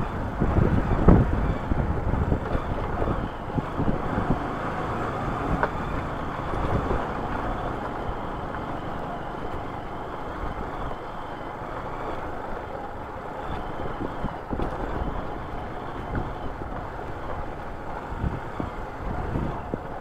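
Motorcycle riding over a rough, loose gravel road: the engine running under a steady rumble of tyres on stones, with knocks from the bike jolting over bumps, the loudest about a second in.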